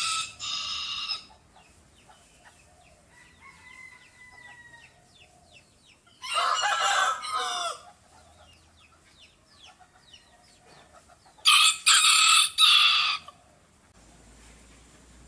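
Rooster crowing three times: the tail of one crow in the first second, another crow about six seconds in, and a long crow near the end, with quiet gaps between.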